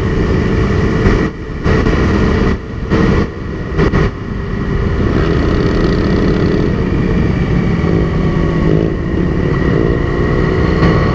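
Sport motorcycle engine running at road speed, heard from on the bike, with other motorcycles of the group riding close by. The engine sound cuts out briefly three times in the first four seconds, then holds steady.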